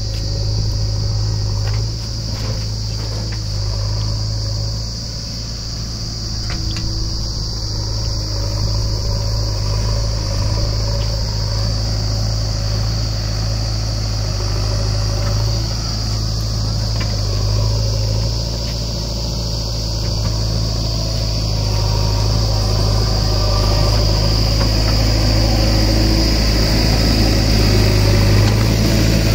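Diesel engines running steadily: a tractor idling close by, with a backhoe loader working as it loads soil into the tractor's trolley.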